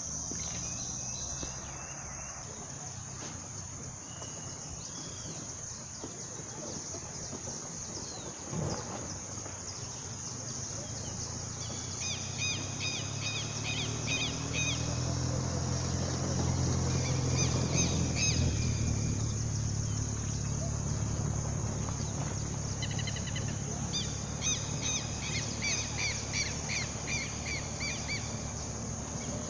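Insects buzzing steadily at a high pitch, with a bird's quick repeated chirping calls in two runs, one midway and one near the end. A low rumble swells and fades in the middle.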